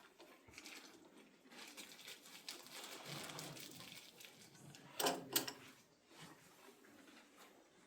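Faint rustling and handling noises as small parts are picked up and worked with by hand, with a brief double clatter about five seconds in.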